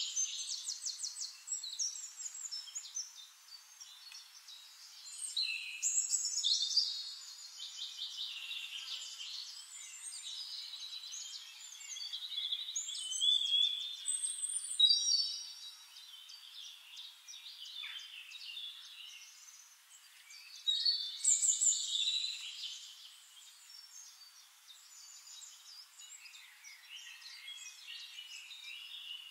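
Several forest songbirds singing and calling over one another, with quick trills and warbled phrases that swell into louder bursts several times.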